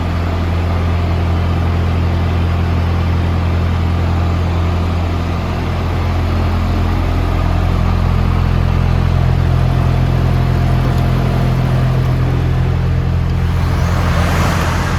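DAF CF290 lorry's diesel engine running steadily, its note rising a little about halfway through. Near the end a hiss of compressed air swells up.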